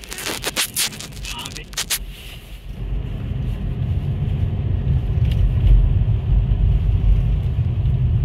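A car's low, steady road rumble heard inside the cabin, starting about three seconds in as the car drives on a snowy, icy street. Before it, a short run of sharp crackling clicks.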